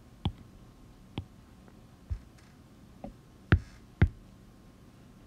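About six separate taps on an iPad touchscreen while selecting, copying and pasting an item, with the two sharpest taps about half a second apart a little past halfway.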